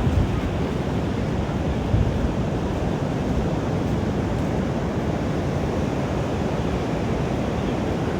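Ocean surf washing up the beach in a steady rush, with wind rumbling on the microphone and a couple of stronger gusts near the start.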